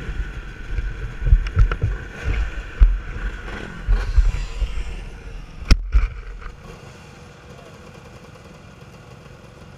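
Handling noise on a helmet-mounted action camera: irregular bumps and rustles as the motocross helmet is taken off and moved about, then a sharp knock about six seconds in as it is set down on gravel. After that only a quieter steady background remains.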